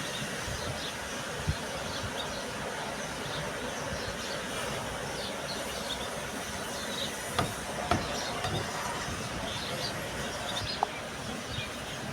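Steady background noise with a few light knocks, about one and a half, seven and a half and eight seconds in, from the parts of a double-piston truck air compressor being handled and fitted by hand.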